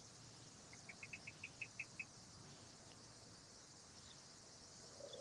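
Near silence with a faint steady high hiss, broken about a second in by a short run of about nine quick, high chirps lasting about a second. A steady low tone begins right at the end.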